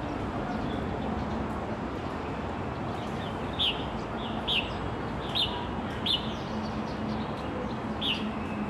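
A bird calling in short, falling chirps, about five of them spread through the second half, over a steady outdoor background hum.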